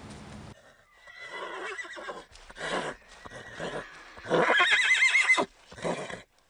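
A horse whinnying: a few softer calls, then one loud whinny about four seconds in, lasting about a second, with a wavering high pitch. A short call comes near the end.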